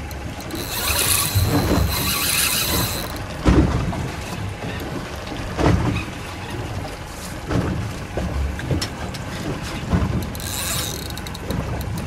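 Fishing reel buzzing with a fast ratcheting click, once for about two and a half seconds and again briefly near the end, with a few dull knocks between.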